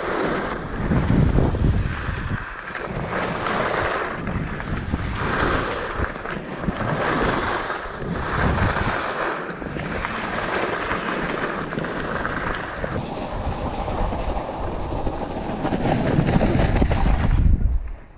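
Skis scraping and hissing over packed, groomed snow as they carve turns, the noise swelling and easing about every second or so, with wind rushing over the microphone. About two-thirds of the way through the sound turns duller.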